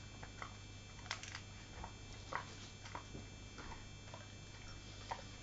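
Faint, irregular soft clicks and rustles, about a dozen spread out, as a hand works around a Labrador's face and eye.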